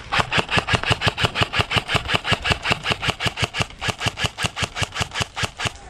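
Airsoft gun firing a long, unbroken string of sharp shots at an even pace of about seven a second, stopping just before the end.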